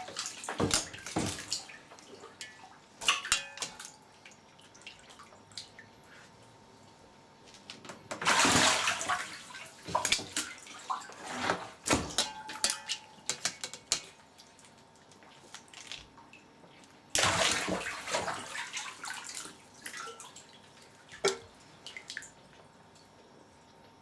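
Water splashing in a plastic tub as an albino saltwater crocodile seizes and thrashes a piece of meat, in several bursts with sharp clicks between; the loudest splashing comes about eight seconds in and again about seventeen seconds in, settling near the end.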